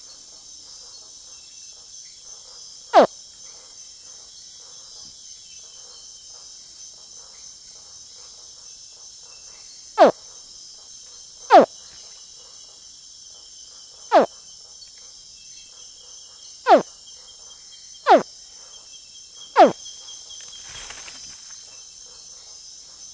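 Baby crocodile calls: seven short, loud chirps, each sliding sharply down in pitch, spaced irregularly a second or more apart, over a steady chorus of insects.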